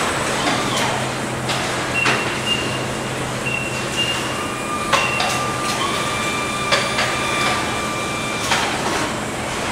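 Driverless electric pallet trucks (automated guided vehicles) moving loaded pallets: a steady low electric hum with scattered clicks and knocks, and several steady high tones at different pitches that start and stop through the middle.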